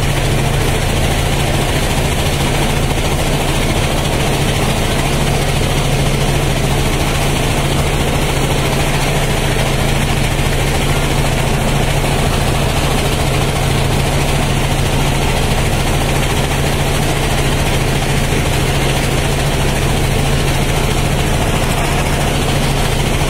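Riverboat engine running steadily under way: a constant low drone, with the rush of churning water from the wake over it.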